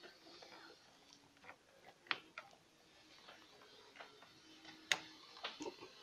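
Small metallic clicks and taps as the positive battery cable clamp is fitted back onto the battery post, with two sharper clicks about two seconds in and about five seconds in.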